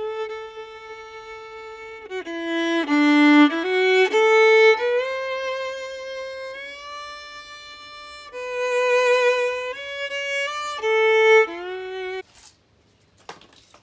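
Solo violin playing a melody, one note at a time, which stops suddenly near the end.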